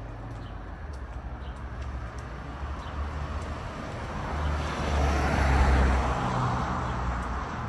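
A motor vehicle driving past on a city street, its engine and tyre noise swelling to the loudest point about five to six seconds in, then fading.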